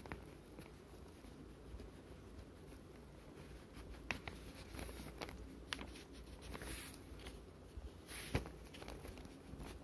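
Faint scratching of a coloured pencil rubbing on drawing paper, with a few soft clicks; the sharpest about eight seconds in.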